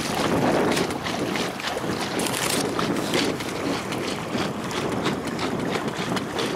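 Wind buffeting the microphone in gusts, with water splashing against the tube of an inflatable boat under way in choppy water.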